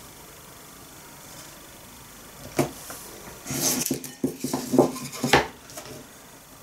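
Crockery and a wooden cutting board being set down and moved about on a table: a knock, a short scraping slide, then several light clinks and knocks.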